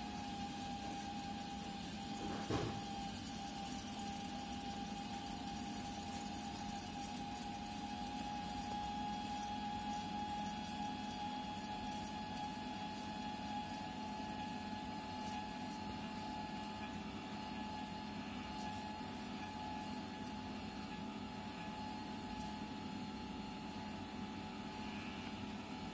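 Videojet 43S inkjet printer running steadily during its cleaning flush, a constant hum with a high steady whine over it, as it drains the used cleaning fluid into a waste bucket. A single knock comes about two and a half seconds in.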